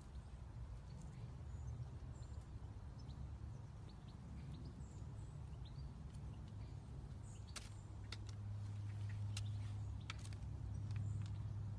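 Quiet outdoor ambience: faint scattered bird chirps over a steady low rumble. A few sharp clicks come in the second half.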